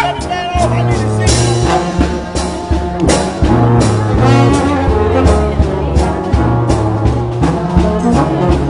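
Music with a steady beat, bass and brass instruments.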